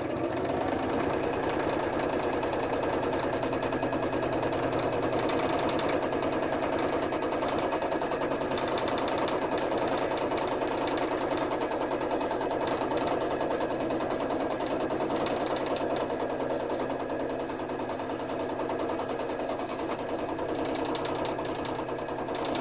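Domestic sewing machine running continuously at an even speed, stitching a fabric appliqué down with a rapid, regular needle rhythm.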